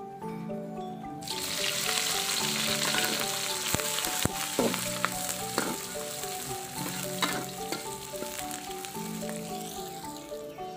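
Sliced shallots, garlic, onion and green chilies hitting hot oil in an aluminium wok: a loud sizzle starts about a second in and keeps going, with the metal spatula scraping and clicking against the wok as they are stirred.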